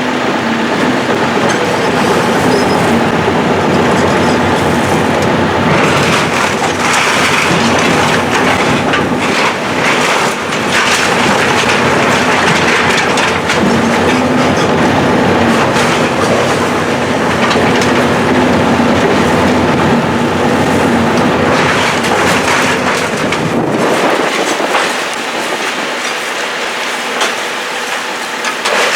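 Heavy demolition machinery tearing down a building: a steady engine hum under continual crunching, clanking and cracking of debris. The low rumble drops away about 24 seconds in.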